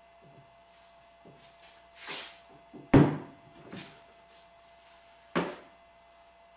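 Metal parts of a cast-iron Famco No. 3 arbor press being handled at its head and pinion. A scrape comes about two seconds in, then a sharp clank about three seconds in, and another clank just after five seconds.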